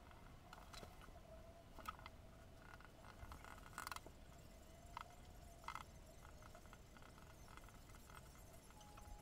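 Near silence: faint room tone with a faint steady hum and a few soft taps and clicks of a ballpoint pen on paper and the desk while writing.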